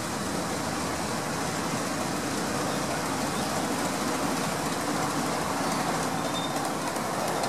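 Miniature live-steam locomotive No. 2, a Romulus-class well tank, running past steadily while hauling riding cars, its wheels rolling on the rails.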